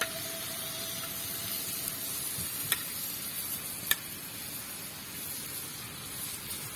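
Maggi noodles sizzling on a hot tawa, a steady frying hiss, with two sharp clicks a little over a second apart near the middle.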